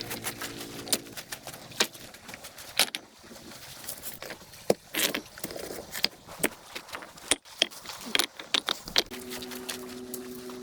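Irregular sharp clicks, taps and rustles, as of things being handled, with a low steady two-note tone coming in about a second and a half before the end.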